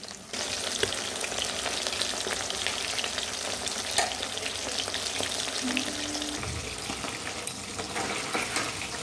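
Cornflour-coated marinated chicken pieces deep-frying in hot oil in a kadai: a steady sizzle full of small crackles, with a couple of sharper pops.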